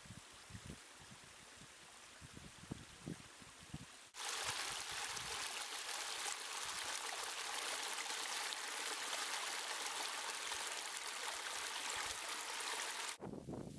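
Rainwater runoff rushing down a normally dry rocky ravine bed and splashing over bare rock: a loud, steady rush that starts abruptly about four seconds in and cuts off shortly before the end. Before it comes a fainter hiss with a few low thumps.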